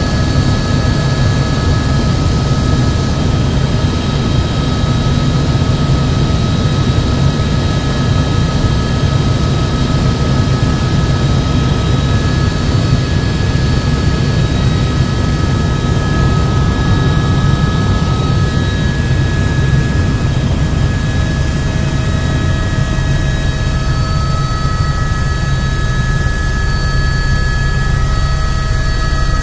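Helicopter in flight: a steady, loud engine and rotor rumble with several steady high whining tones over it.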